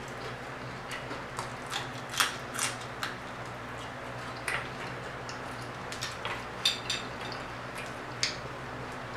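Eating crispy fried croaker fish by hand: irregular crackles and crunches as the fried fish is bitten, chewed and pulled apart, with a few louder snaps about two seconds in and again near the end. A low steady hum lies underneath.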